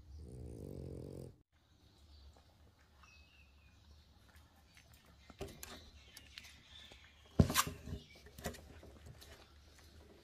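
A puppy's short, low, pitched vocal sound lasting about a second, then faint scuffling with a few sharp knocks, the loudest about seven seconds in.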